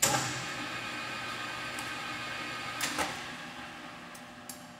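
A metal clank on the lathe, followed by metallic ringing with several steady tones that fades slowly, then two light clicks about three and four and a half seconds in.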